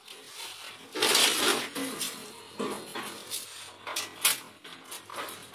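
Handling noise of a worker working cable at an electrical distribution panel. There is a scraping rustle about a second in, the loudest part, then scattered sharp clicks and knocks.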